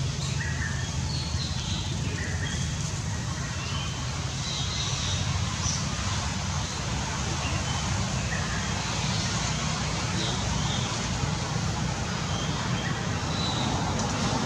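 Steady outdoor background noise with a strong low rumble, like distant traffic or wind, and a few short high chirps scattered through it.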